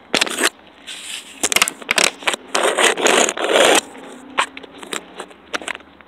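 Scraping, rubbing and clicking handling noises from plastic items and the phone being moved, with a longer, louder scraping rustle about two and a half seconds in.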